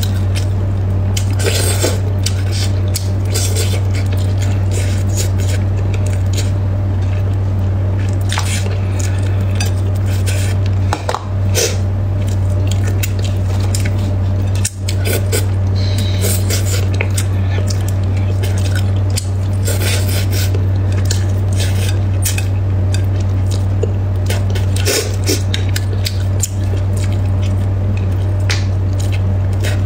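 Eating spicy braised fish: chopsticks clicking and scraping on a plate and a plastic bowl, with many short wet squishing and sucking sounds, over a steady low hum.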